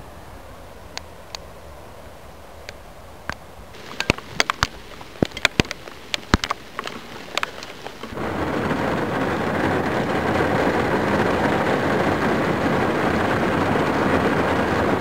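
Rain shower arriving: first the faint steady hiss of heavy rain falling in the distance with a few scattered drop ticks, then big raindrops hitting close by as a flurry of sharp ticks from about four to seven seconds in. About eight seconds in the downpour arrives, and a loud, dense, even hiss of heavy rain takes over.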